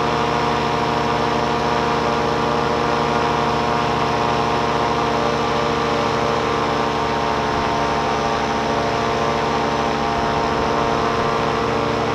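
Tandem paramotor's engine and propeller running steadily in flight: a constant, unchanging drone made of many even tones over a rush of noise.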